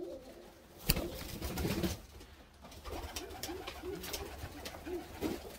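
Domestic pigeons cooing in a loft, short low coos repeating through the second half. A single sharp click comes about a second in.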